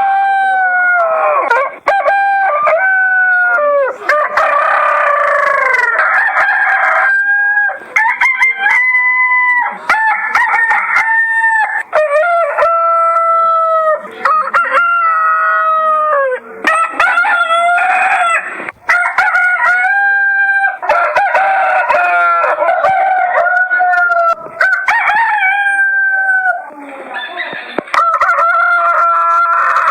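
Roosters crowing over and over, one crow after another with only brief gaps, the calls often overlapping.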